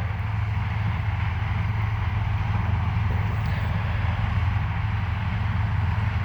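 Harvest machinery running steadily, a deep, even engine drone with a broad hiss of working machinery over it.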